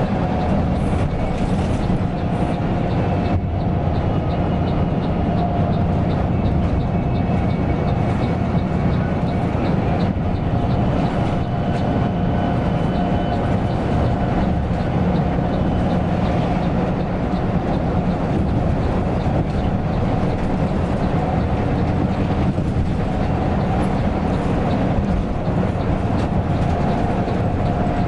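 Mercedes-Benz OC 500 RF 2542 coach under way: a steady, unbroken low drone of engine and road noise, with a thin steady whine above it.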